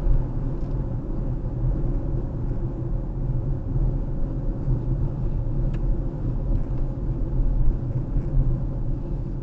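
A car driving: steady low road and engine rumble with tyre noise.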